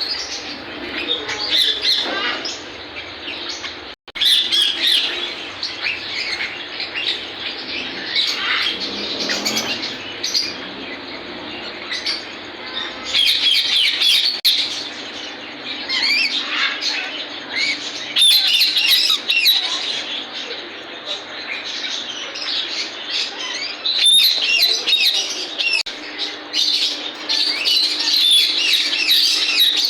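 A dense chorus of many caged pet parrots chirping and squawking at once, with no let-up. The sound briefly cuts out about four seconds in, and it grows louder in stretches in the second half.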